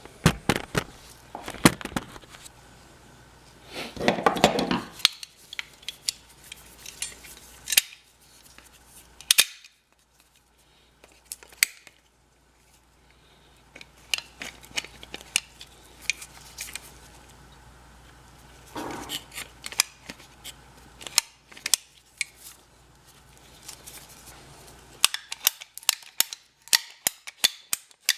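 Sharp clicks and snaps of a drain pipe being cut to length and handled, with a brief scraping rush about four seconds in and a quick run of clicks near the end.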